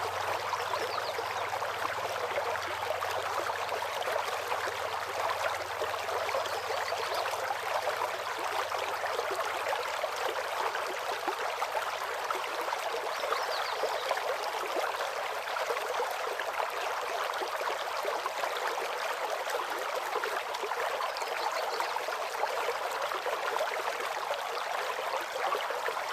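Waterfall water rushing in a steady, unbroken wash, with a few faint bird chirps now and then.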